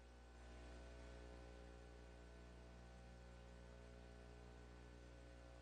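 Near silence: room tone with a low, steady hum.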